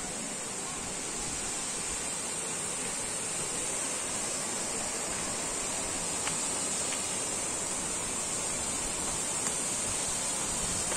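Waterfall rushing as a steady hiss of falling water, growing slightly louder toward the end.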